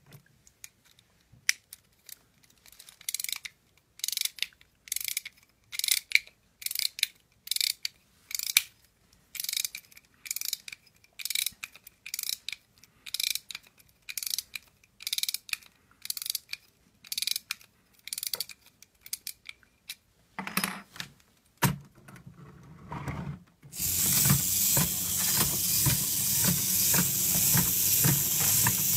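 Pre-war Meccano clockwork motor being wound with its key: short bursts of ratchet clicking about once a second. About 24 seconds in the spring is released and the motor runs with a continuous loud whir as it drives the Meccano horse's legs.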